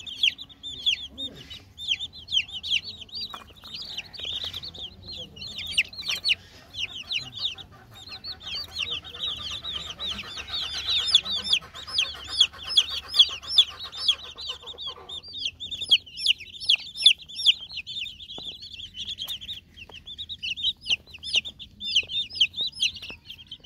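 A flock of young chicks peeping without a break: many short, high-pitched peeps overlapping and repeating rapidly, densest around the middle, with a few sharp clicks among them.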